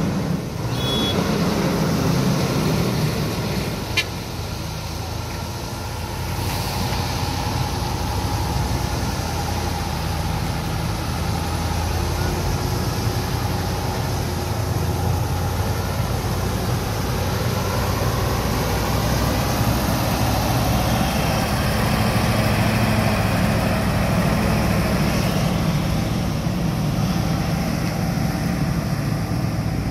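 Heavy Mercedes-Benz truck diesel engines running as loaded trucks pull slowly past, a steady low drone that builds a little in the second half. A single sharp click about four seconds in.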